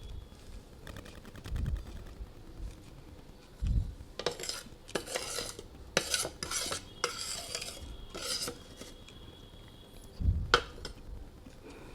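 Hard clay being bitten and crunched close to the microphone: a quick run of sharp crunches from about four to eight and a half seconds in, with a few dull thumps around them.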